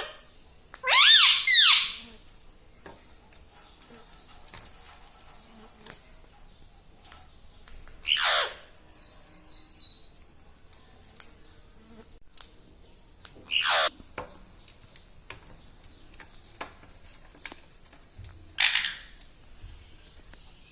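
Indian ringneck parrot calling: a quick burst of rising and falling squawks about a second in, then single loud screeches that sweep downward in pitch around 8, 14 and 19 seconds, with a few soft chirps after the one at 8. A faint steady high-pitched tone runs underneath.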